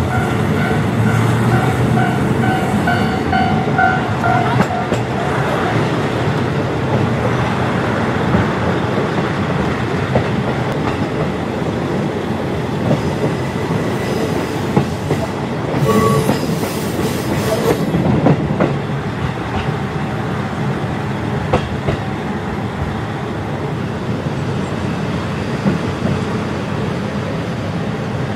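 JR Hokkaido KiHa 40 diesel railcar running, heard through an open window: a steady rumble of the diesel engine and wheels on the rails. A level-crossing bell rings in a rapid on-off pattern for the first four seconds or so and then fades. There is a brief burst of high hiss about sixteen seconds in.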